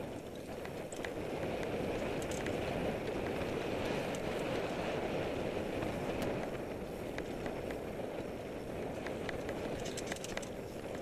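Mountain bike riding along a dirt trail: a steady rushing noise of tyres and air, with scattered small clicks and rattles.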